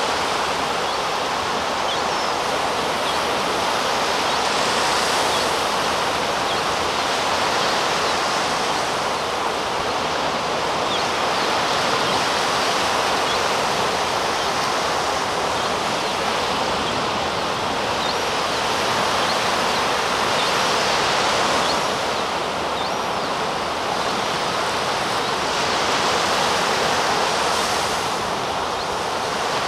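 Sea surf rushing steadily onto a sandy beach, swelling and easing every few seconds. Faint, thin, high whistling calls come through a few times: a juvenile herring gull begging for food.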